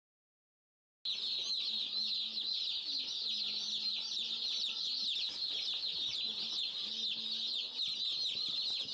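A flock of baby broiler chicks peeping continuously, many high-pitched cheeps overlapping, starting about a second in.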